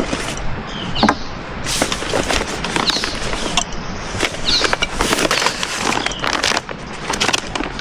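Rustling and crinkling of food pouches and camping gear being handled, with many irregular clicks and knocks.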